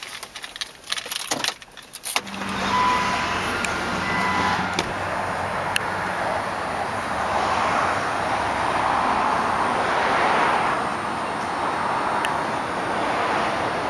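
A few sharp clicks and knocks, then from about two seconds in a steady rushing outdoor background noise, with a couple of short beeps shortly after it starts.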